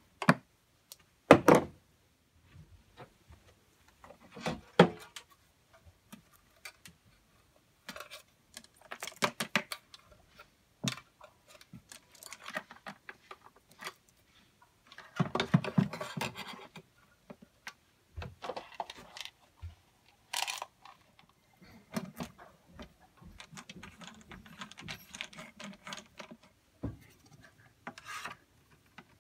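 Hands working inside a portable PA speaker's plastic cabinet: irregular clicks, knocks and rustles as the battery clamp, plastic wire connectors and a circuit board are handled, with two sharper knocks in the first five seconds.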